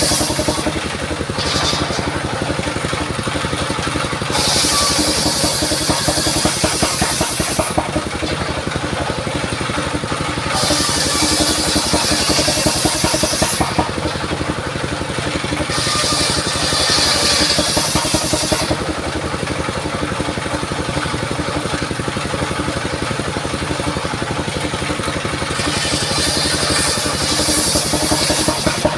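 Engine of a mobile circular sawmill running steadily, while the spinning blade cuts through mahogany four times. Each cut adds a high, rasping whine that lasts about three seconds.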